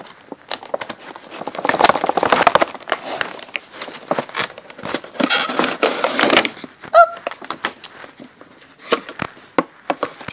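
A cardboard collectible box and its packaging being handled as a vinyl figure is worked out of it: scraping, rustling and irregular knocks, with a brief squeak about seven seconds in.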